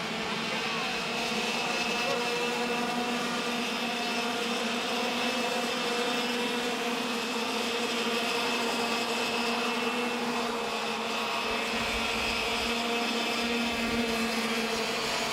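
Racing go-kart engines buzzing at high revs, a steady, unbroken drone.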